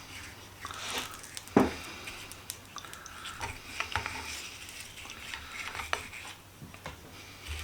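Hot steel vise part crackling in oil during hot-oil bluing, a scatter of small irregular crackles and pops, with one sharp knock about a second and a half in. A little crackling like this is the sign the steel is at the right heat; much more would mean it is too hot.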